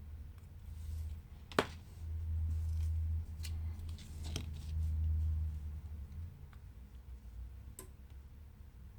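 Small clicks and taps of tools and parts being handled during a smartphone teardown: one sharp click about a second and a half in and a few lighter ones later, over a low rumble of handling on the work surface.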